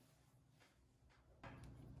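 Near silence: quiet room tone, with a faint low hum and a few faint light handling ticks in the last half second.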